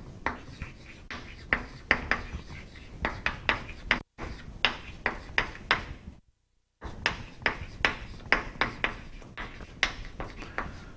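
Chalk writing on a chalkboard: quick, irregular taps and scrapes of the chalk stick against the board as letters are written. The sound drops out completely twice, briefly.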